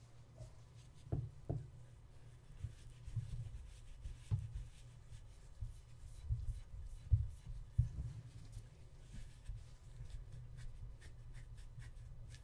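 Soft, uneven scratchy rubbing of a polishing sponge scrubbing silver polish over the base of a silver-plated creamer to lift tarnish, with dull low thumps from handling, the loudest a pair about a second in and another pair around seven to eight seconds in.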